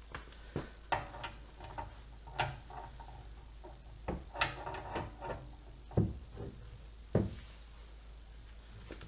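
Metal hand tools clinking and knocking as a long breaker bar and socket are handled: a string of separate clicks and clanks, some with a short metallic ring, and two heavier knocks a little past the middle.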